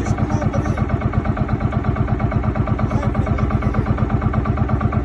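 Engine of a motorized wooden riverboat running steadily under way, with a fast, even pulse.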